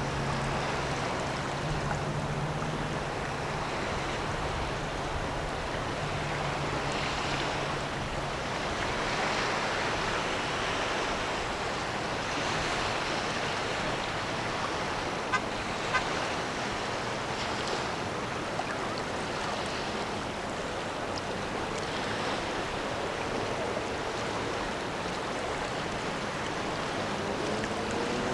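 Steady rush of wind and river water. A low, steady hum fades out about eight seconds in, and there are two sharp clicks about halfway through.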